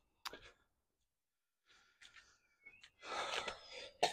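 A man sighs heavily, a breathy exhale about three seconds in, with a few faint clicks of handling before and after.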